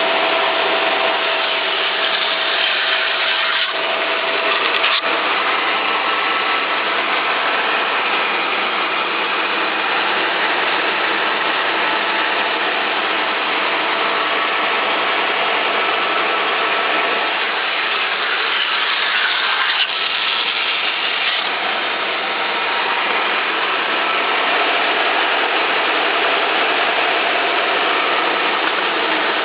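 Meber SR900 industrial band saw, with 36-inch solid wheels and no tires, running steadily: a continuous loud mechanical whirr with a few steady tones.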